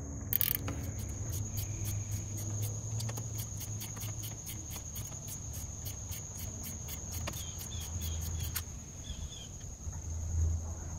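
Ratcheting wrench clicking in a steady run, about four clicks a second, as it backs out a thermostat housing bolt; the clicking stops suddenly a little past two-thirds of the way in. A steady high insect drone, crickets, runs underneath.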